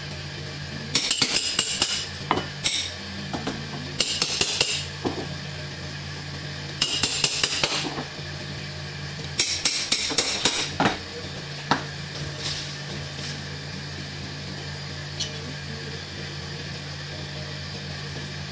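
Butcher's knife work on fish: four bursts of rapid metallic scraping and clinking, each about a second long, then a few single clicks, over a steady low hum.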